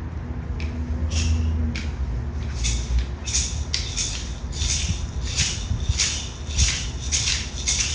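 Several wooden split-stick clapper rattles clacking, a few scattered clacks at first, then settling into a steady beat of about two to three clacks a second to open an honor song.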